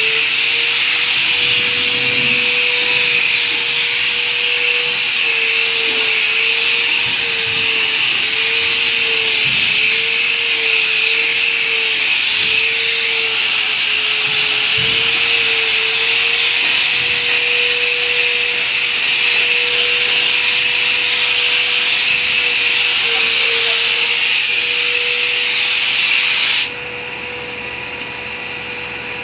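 A motor-driven machine running steadily: a loud, even whoosh of air with a steady hum underneath. The whoosh cuts off suddenly near the end, leaving the hum.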